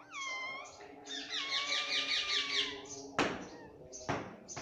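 Pet parrot calling: a short call that drops in pitch, then a longer wavering, rapidly pulsing call, a little like a cat's mew. Two short noisy bursts follow near the end.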